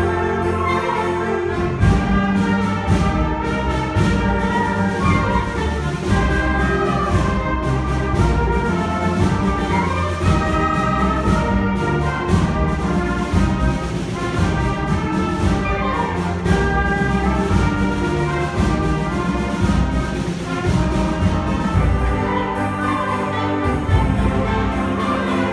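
School concert band playing a full-ensemble passage, brass to the fore over a strong, steady bass line.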